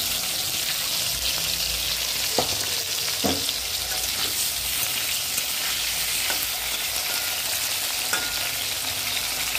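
Potato chunks sizzling as they fry in hot oil in a metal kadai, with a metal spatula scraping and knocking against the pan a few times as they are stirred.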